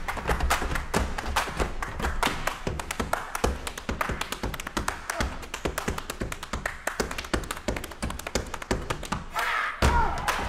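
Body percussion: rapid, tightly rhythmic hand slaps on thighs and body, mixed with claps and low foot stomps on a wooden stage. Voices briefly break in near the end.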